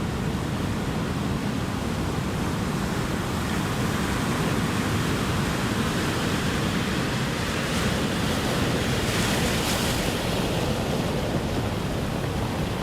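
Ocean surf: a steady rush of waves, with one wave breaking and hissing up the shore about eight seconds in, then fading back.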